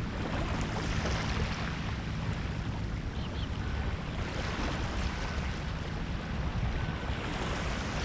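Small waves washing up over a sandy creek shore, the wash swelling and fading a few times, with wind rumbling on the microphone underneath.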